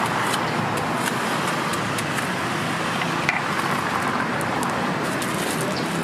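Steady street traffic noise, with light scattered clicks throughout and one sharper tick about three seconds in.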